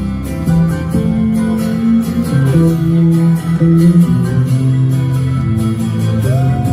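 Live rock band playing an instrumental passage led by guitar, with sustained bass notes moving underneath. Near the end a gliding, rising note comes in over the band.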